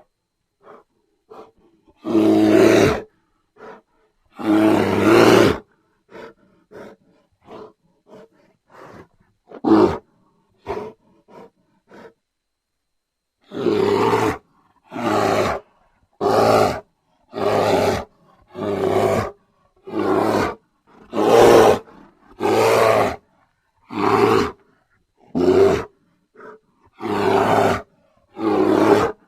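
Bear roars, cut one after another with dead silence between them: two long roars about two and five seconds in, a stretch of short faint sounds, then from about halfway a run of a dozen or so short roars about one a second.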